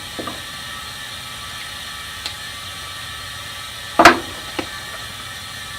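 Handling noise from securing a rolled UV pipe-repair packer with twist ties: a few light clicks and one sharp knock about four seconds in, over a steady background hiss.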